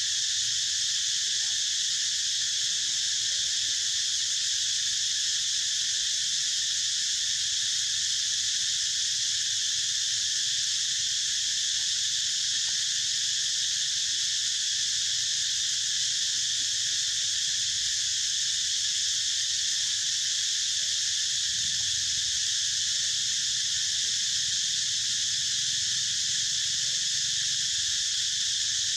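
Steady, high-pitched chorus of insects, an unbroken drone that does not change.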